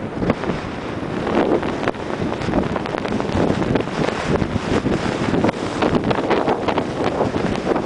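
Wind rushing over the microphone of a camera carried by a downhill skier, mixed with the hiss of skis sliding on snow and many short scrapes.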